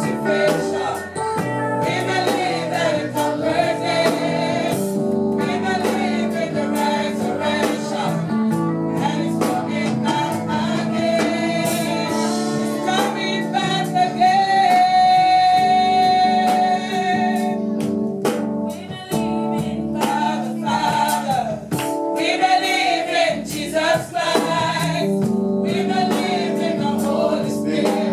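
Gospel singing by a congregation or choir with instrumental accompaniment, with a long held high note in the middle.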